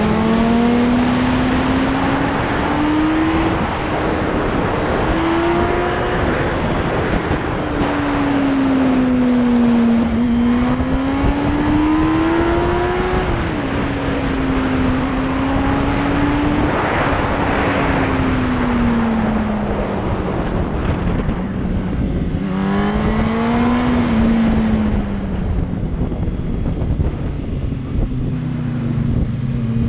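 Yamaha R1 sport bike's inline-four engine running under way. Its pitch rises and falls with throttle and gear changes, with a sharp drop about halfway through and a dip and climb again near the end. Heavy wind rush over the microphone from riding speed runs under it.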